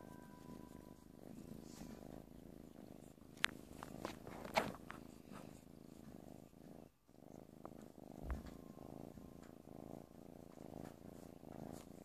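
White kitten purring steadily while its chin is rubbed, with a brief break in the purr about seven seconds in. Two sharp clicks come about three and a half and four and a half seconds in, and a soft low thump a little after eight seconds.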